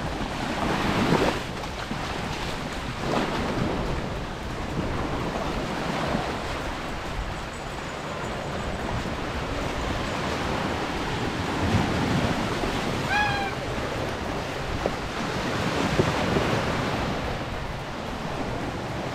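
Waves washing onto a beach in a steady, swelling rush, with wind buffeting the microphone. A brief high-pitched call sounds once, about thirteen seconds in.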